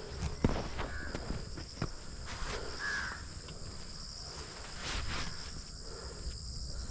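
Insects, crickets or cicadas, shrilling steadily on two high pitches, with scattered short knocks and a few brief calls.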